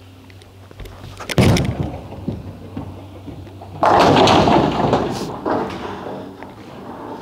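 A urethane bowling ball landing on the lane with a sharp thud about a second and a half in and rolling, then crashing into the pins about two and a half seconds later, the pin clatter loudest at first and dying away.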